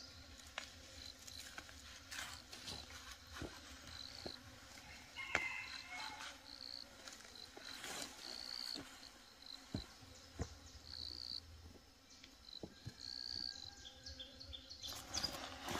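Faint insect calls in the woods: short high chirps repeating every second or so, with scattered soft clicks and a louder rustle near the end.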